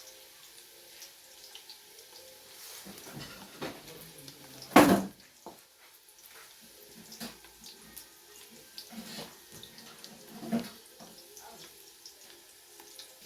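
Onions frying in a cooking pan with a steady sizzle. A loud clatter of a utensil or pot lid about five seconds in, and lighter knocks near nine and ten and a half seconds.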